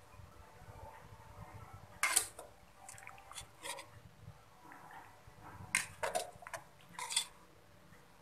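Metal ladle scraping and knocking against a thin aluminium pan while scooping soup broth, in a few short scrapes: one about two seconds in, the loudest, and a cluster about six to seven seconds in.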